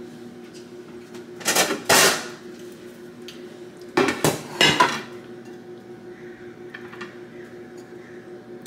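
Kitchen dishes and utensils being handled: glass bowls, a spoon and a plastic lid knock and scrape in two short clusters, about one and a half and four seconds in, over a steady low hum.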